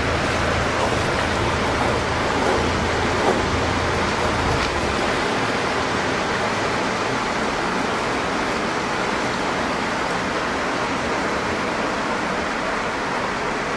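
Steady rushing of water in a boat lock chamber, with a low motorboat engine hum underneath that dies away about four to five seconds in.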